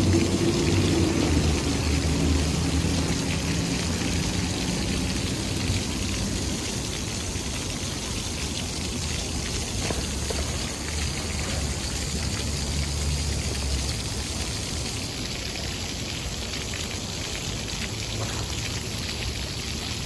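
Row of small ground-level jet fountains splashing down into a shallow pool: a steady hiss of falling water. A low hum of city traffic lies under it in the first few seconds and again about two-thirds of the way through.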